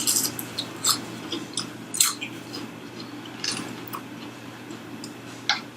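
Biting and chewing crunchy fried chicken, with a handful of sharp crunches roughly a second apart.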